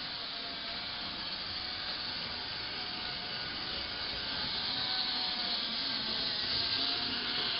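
LGB G-scale model tram running on its track, its electric motor and gear drive giving a steady whirring hiss with a faint wavering whine. It grows louder about four to five seconds in as the tram draws near.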